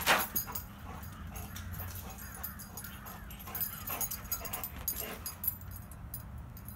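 A dog whining and yipping, worked up while chasing a laser pointer dot: one loud yip right at the start, then softer, wavering whines and short yips.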